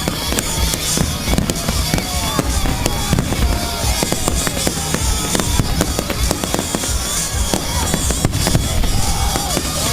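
Fireworks display with a dense, continuous run of bangs and crackles, and music playing underneath.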